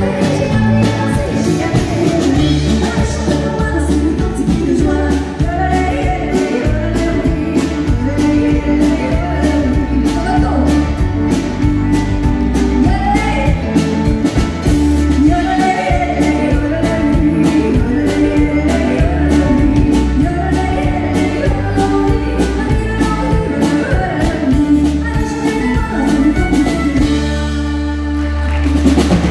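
Live country band with a female lead singer, playing over a steady drum beat, bass and electric guitar. Near the end the drums stop and the band holds a chord.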